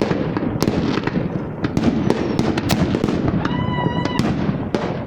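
Fireworks going off in quick succession: a dense run of sharp bangs and crackles, with a brief high steady tone about three and a half seconds in.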